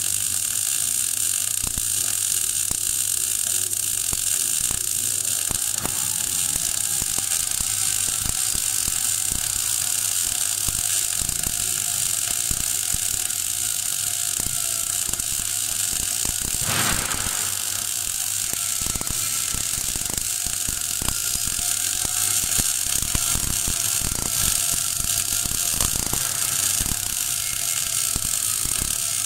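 MAG (gas metal arc) welding arc running steadily with a dense, even crackle and hiss as the torch lays a vertical-up fill pass on 12 mm steel plate at 16.5 volts and 3.2 metres per minute wire feed. There is one brief louder flare a little past halfway, over a faint steady hum.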